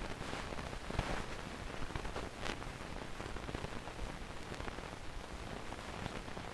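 Faint crackling static: a steady hiss peppered with small irregular clicks.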